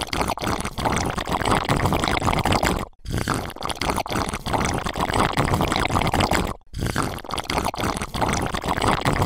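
Gurgling liquid sound effect for a mug of drink being chugged. It runs in three long stretches with two brief gaps.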